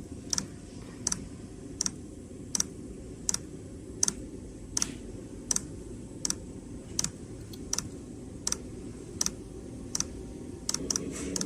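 Diesel air heater starting up: its fuel dosing pump ticks steadily, about one click every three-quarters of a second, over the steady low hum of the heater's fan and burner. The pump is metering fuel while the burner comes up to power.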